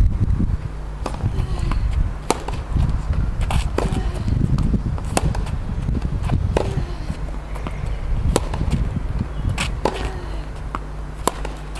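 Tennis rally on a hard court: sharp pops of racket strings striking the ball and the ball bouncing, coming every second or so, over a steady low rumble.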